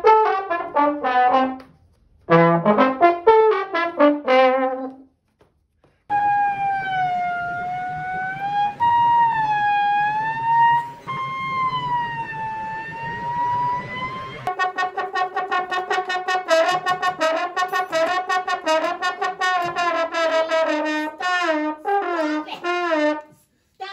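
Comic brass sound effects: two descending 'wah-wah' phrases of stepped notes, then a long wavering held note, then rapid fluttering repeated notes.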